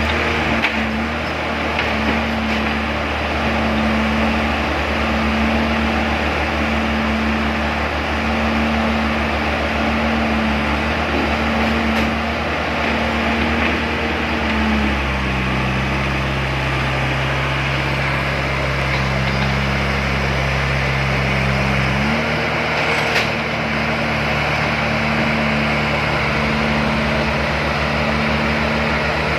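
Heavy-equipment diesel engine running steadily under work, its note dropping about halfway through and rising again a few seconds later.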